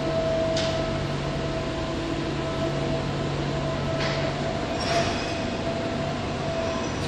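Tyne and Wear Metro Class 994 Metrocar standing at the platform with its doors open: a steady hum with a high whine running through it, broken by three short hisses, about half a second, four and five seconds in.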